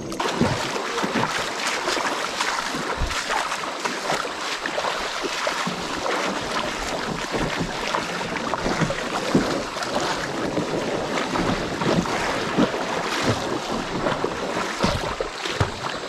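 River water splashing and rushing around a kayak, with a steady run of many small splashes and knocks.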